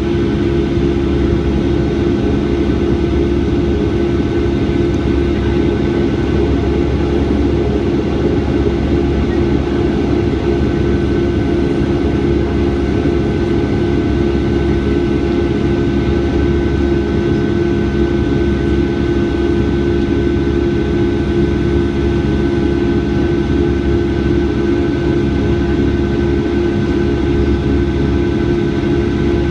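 Boeing 757-200 jet engines at high power, heard inside the passenger cabin as a loud, steady rumble with constant humming tones.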